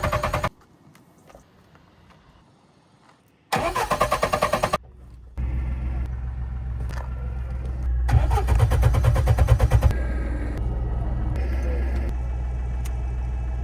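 Car starter cranking the engine in two short bursts. About five seconds in the engine catches and keeps running with a steady low hum, with a louder pulsing stretch for about two seconds near the middle.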